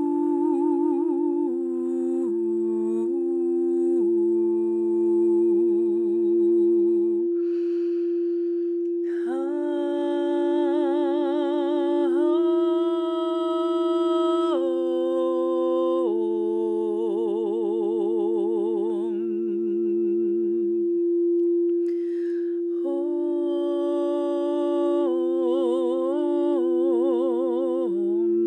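A woman sings wordless light-language tones, hummed and open-voiced with a wavering vibrato, stepping to a new pitch every second or two, over one steady crystal singing bowl tone. The voice stops twice for breath, about a third of the way in and again about two thirds in, while the bowl tone holds.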